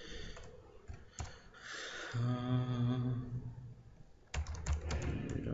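Computer keyboard keystrokes clicking, broken in the middle by a low, steady vocal hum held for about a second and a half, then more keystrokes near the end.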